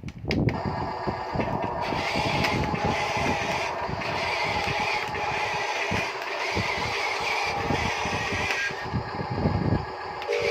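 Electric motor and plastic gearbox of a Huina radio-controlled construction toy whining as it runs, starting abruptly at the outset, with rattling underneath and a change in the whine about two seconds before the end.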